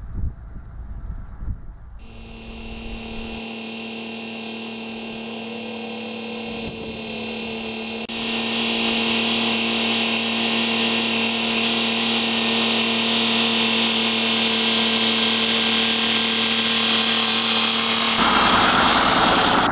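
Insects chirp in an even rhythm for the first two seconds, with wind buffeting the microphone. Then a machine starts running steadily, with a constant hum. It gets louder about eight seconds in and changes to a rougher rushing sound near the end.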